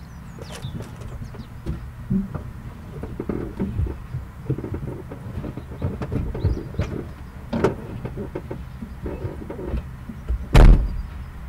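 Irregular knocks and bumps of a person shifting about inside a car's boot, over a low steady hum, with one loud thud near the end.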